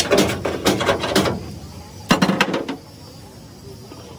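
A run of rapid, irregular knocks and clatter, then a second, shorter run about two seconds in.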